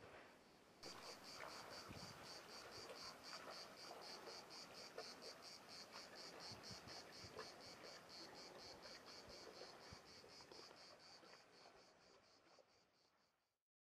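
Cicadas singing in a steady pulsing rhythm of about four or five pulses a second. The song starts abruptly about a second in, then fades and cuts off near the end.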